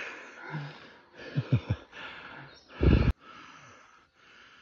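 A person panting hard from exertion, short breaths one after another. A few low thumps come about one and a half seconds in, and a louder one near three seconds.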